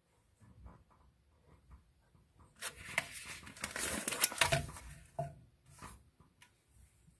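Paper microwave popcorn bag rustling and crinkling as it is handled and set down on the turntable, loudest from about two and a half to five seconds in, with a few sharp crackles.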